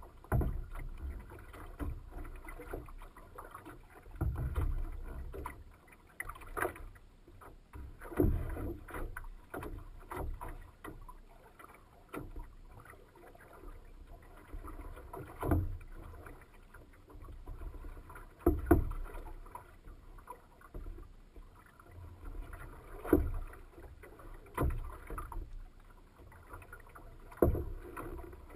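Choppy lake water lapping and splashing against the hull of a small boat, with a sharp slap every few seconds over a low wind rumble.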